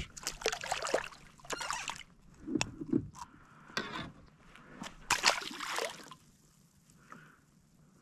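A small redfish splashing at the surface beside a kayak while it is landed and handled, water sloshing in irregular bursts, dying down about six seconds in.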